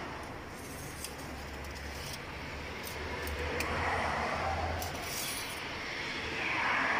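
Light clicks and rustling as a metal engine-oil dipstick is drawn from its tube and handled, over a low steady hum that fades about five seconds in.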